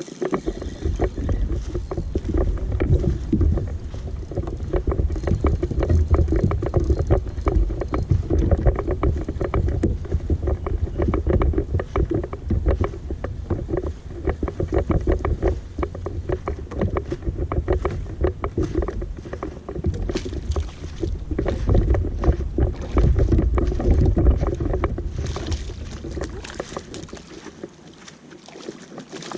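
Small boat running across the lake, its hull knocking rapidly and irregularly on the chop over a heavy low rumble, easing off near the end.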